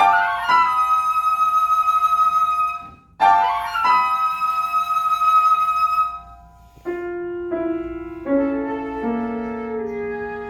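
Concert flute playing two long held notes, each opening with a quick flourish of grace notes. These are followed by a softer, lower line of held notes stepping downward.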